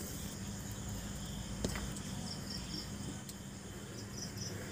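Crickets chirping faintly in two short pulsed bursts, about two seconds in and again near the end, over a low steady hum.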